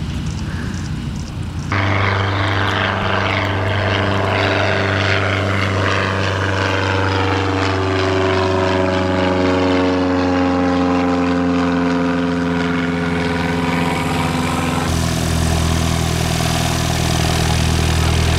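Scottish Aviation Bulldog's four-cylinder piston engine and propeller running at steady power as the plane goes past, its tone sliding downward through the middle. About fifteen seconds in, the sound changes abruptly to a Piper PA-28's propeller engine running steadily at a lower pitch.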